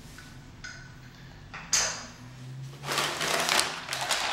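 One sharp knock, then the crinkling of a plastic bag as the wrapped manuals are lifted out of the box, rustling densely through the last second and a half.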